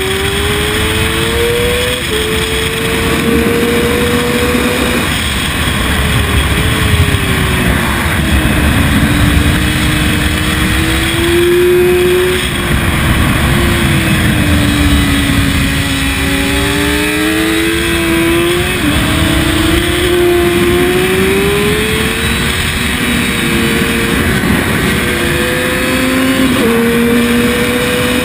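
Sport bike engine at racing speed, its pitch climbing with the revs and dropping sharply at each gear change, easing off and building again through the corners.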